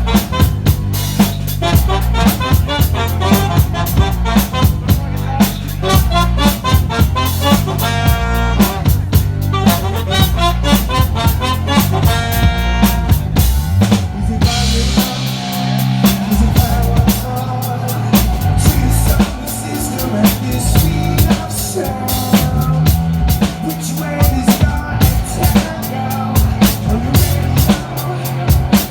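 A live band playing at a sound check, the drum kit prominent with snare and bass drum hits driving a steady beat over low bass notes.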